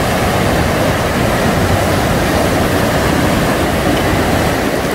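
Glacier-fed mountain river rushing over boulders in whitewater rapids: a loud, steady wash of water.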